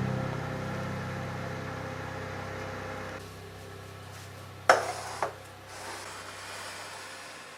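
The last piano chord of the background music dying away slowly, with two short sharp knocks about halfway through.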